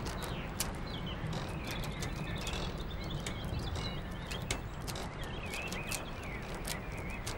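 Birds chirping in short calls over a steady low background, with scattered sharp clicks of prayer beads being worked in a hand.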